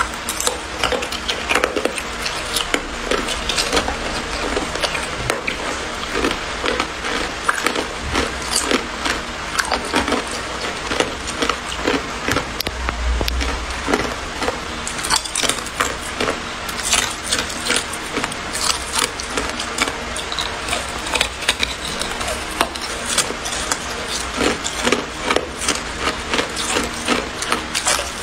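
A block of clear ice being bitten and chewed close to the microphone: a dense, irregular run of sharp cracks and crunches as the ice snaps and is crushed between the teeth.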